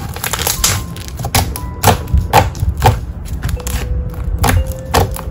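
Thick pink slime pressed, poked and pulled by hands, giving a string of sharp clicks and pops, about two a second.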